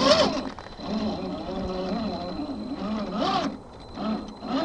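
The electric motor and gear drivetrain of an RC4WD Trail Finder 2 1/10-scale crawler whine as it creeps through dirt and rocks. The pitch wavers up and down with the throttle, and the whine drops out briefly twice.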